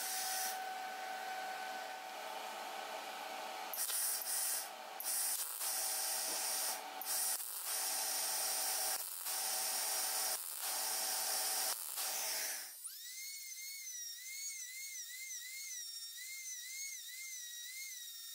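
MIG welder crackling through a string of about eight short welds, tacking steel fins onto a knife guard. About 13 seconds in, it gives way to a small handheld rotary tool with a sanding drum whining as it grinds steel, its pitch wavering.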